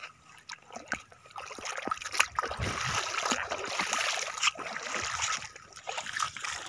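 Footsteps in rubber flip-flops splashing through wet sand and shallow seawater, an irregular run of wet steps over a steady watery hiss that picks up about two seconds in.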